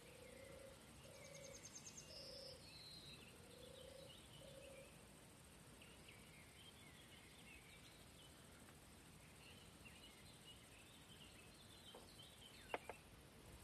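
Near silence with faint distant birdsong, scattered chirps and a short high trill. A run of soft low notes repeats roughly once a second through the first five seconds, and two sharp clicks close together near the end are the loudest sounds.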